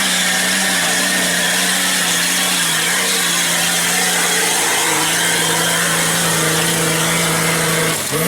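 Off-road 4x4's engine held at high revs at full throttle on a hill climb, its pitch steady with slight dips a few times.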